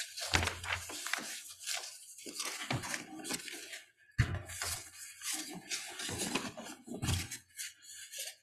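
Sheets of paper rustling and shuffling close to a lectern microphone, in two long spells of handling, with a few dull low bumps as the pages knock against the lectern.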